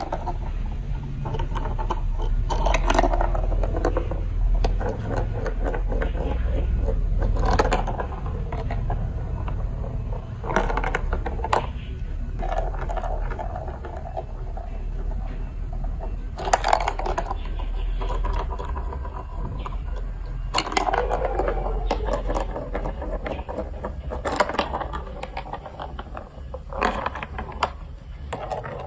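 Plastic building blocks and marble-run pieces clicking and clattering as they are handled and snapped together, with a steady low rumble underneath.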